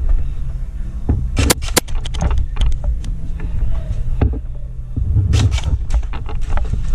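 Steady low rumble of a body-worn action camera moving with its wearer, broken by sharp snaps: two about a second and a half in and a quick cluster about five and a half seconds in.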